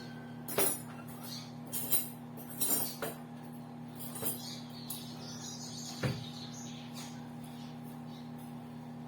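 Microwave oven running with a steady hum, with several short sharp clicks and knocks over the first six seconds.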